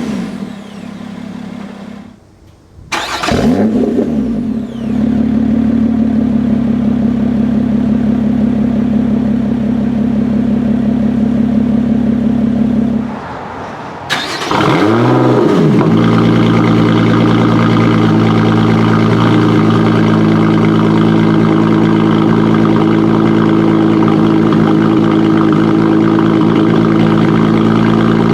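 Lotus Evora 400's supercharged V6 started twice, each time flaring up in revs and then settling into a steady idle. The exhaust bypass valves are open in sport mode, giving the deeper, louder startup growl. Near the end the engine settles into a louder, fuller idle.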